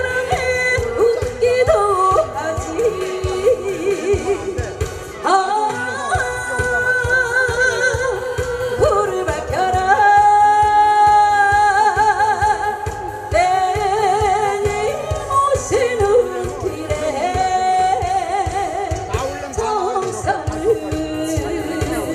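A woman singing a Korean popular song into a microphone over a recorded backing track with a steady beat, her voice in wide vibrato, holding one long note about ten seconds in.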